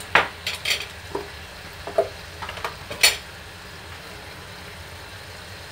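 Butter chicken gravy sizzling in a wok, a steady faint hiss, with several light clicks and knocks of kitchen utensils over the first three seconds, the loudest about three seconds in.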